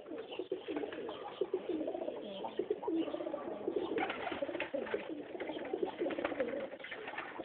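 Several domestic pigeons cooing together, their low warbling calls overlapping.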